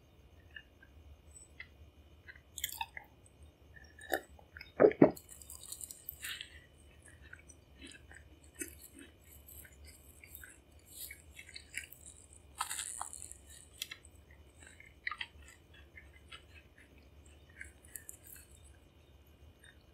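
A person chewing a mouthful of soft pan dulce (Mexican sweet bread), with short wet mouth clicks and smacks. A louder pair of mouth sounds comes about five seconds in, and another near thirteen seconds.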